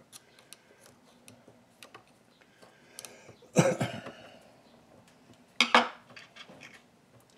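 Small metal clicks and clinks as the parts of a Frankford Arsenal M-Press coaxial reloading press and hand tools are handled, with two louder metallic clanks about three and a half and five and a half seconds in.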